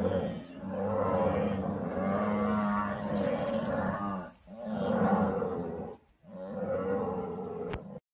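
African buffalo bellowing: a run of about four long, drawn-out, moo-like calls with short breaks between them.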